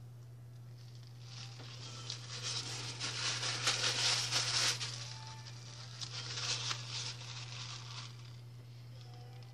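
Crinkling and rustling of something handled in gloved hands, building up about a second in, loudest around the middle and dying away near the end, over a steady low hum.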